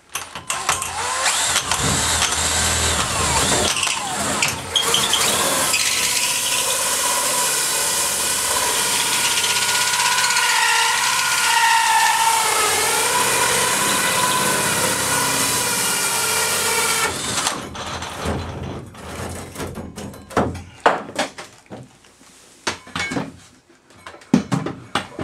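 A drill spinning a 4.5-inch hole saw through an acrylic shower wall: a steady grinding noise with a whine that wavers in pitch as the teeth cut, lasting about seventeen seconds before it stops. After it, a run of scattered clicks and knocks.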